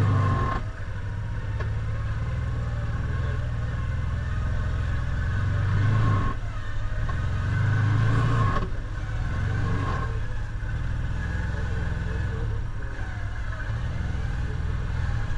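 Can-Am side-by-side's engine running at idle, with a few brief rises in revs, the biggest near the start and around six and eight seconds in.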